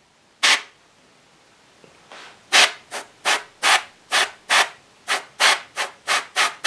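Gravity-feed airbrush spraying flesh-tone base-coat paint in short trigger bursts of hiss. One burst comes about half a second in, then a quick run of about a dozen bursts, roughly three a second, through the second half.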